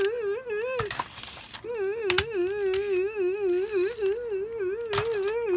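A steady warbling tone with a fast, even wobble in pitch, about four or five wobbles a second. It breaks off about a second in for a short hissy burst, then carries on, with a few sharp clicks along the way.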